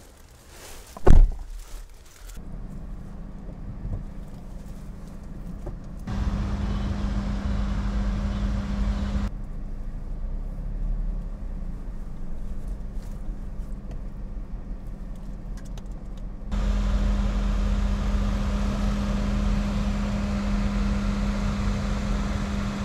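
A single loud thud about a second in, the driver's door of a 2021 Suzuki Cultus VXL shutting, then the car's 1.0-litre three-cylinder engine running, heard from inside the cabin. The engine and road noise are steady, louder in two long stretches with a steady hum.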